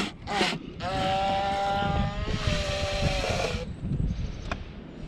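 A vehicle on the road sounds a long, steady horn blast as it passes. The horn's pitch drops about halfway through as the vehicle goes by, with a rush of tyre and road noise. Wind rumbles on the microphone throughout.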